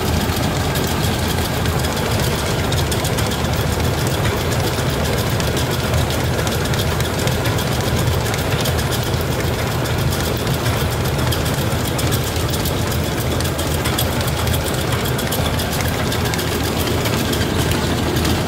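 Single-cylinder stationary diesel engine running steadily under load, belt-driving a rice milling machine that is hulling rice.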